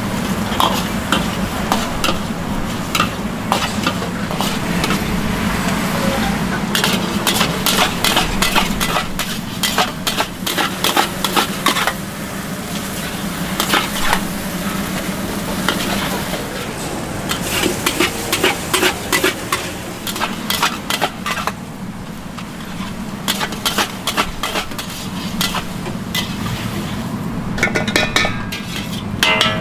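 Stir-frying noodles in a wok: a metal spatula scraping and clacking against the pan over a steady sizzle, with frequent sharp clacks in quick clusters.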